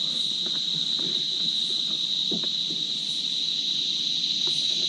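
Steady, unbroken high-pitched insect chorus, with a few faint knocks underneath.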